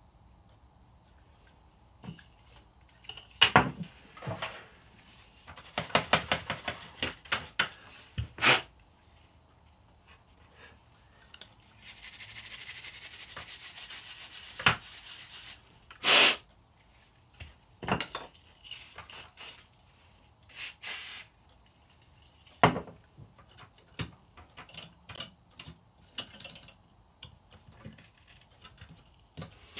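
Plastic clicks and knocks as a graphics-card fan is taken apart by hand and its rotor pulled off. There is a quick run of rattling clicks about six seconds in and a few seconds of rubbing around the middle.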